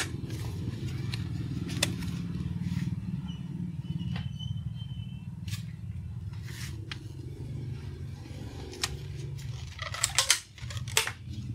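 Scattered clicks and taps of metal tongs on a plate and of a foam takeaway box being handled, with a cluster of clicks near the end as the box is snapped shut, over a steady low hum.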